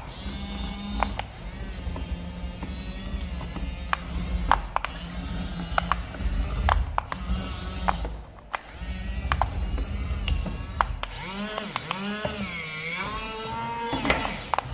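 Toy RC car's small electric motor and plastic gearbox whirring in spurts, with scattered sharp clicks. A wavering, warbling tone rises and falls for a few seconds near the end.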